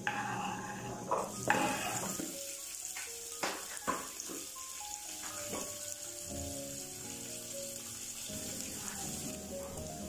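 Chopped red onions sizzling as they fry in oil in an aluminium pot, with a few sharp clicks about halfway through. Background music plays underneath.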